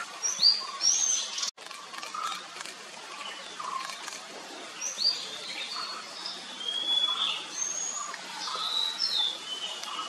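A Nilgiri sholakili (white-bellied shortwing) singing: short, high whistled notes, some rising and some falling, in scattered phrases. The sound cuts out for an instant about one and a half seconds in.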